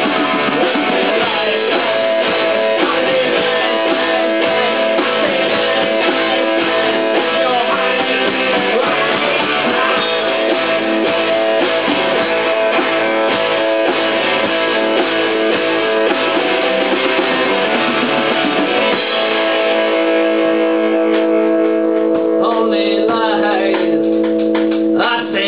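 Rock band playing live: electric guitar with bass guitar and a drum kit.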